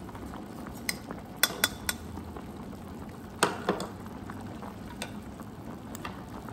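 A fork and metal ladle clinking against a stainless steel hot pot and the food in it, over broth bubbling at the boil. There is a quick run of clinks about a second in and a single louder clink about halfway through.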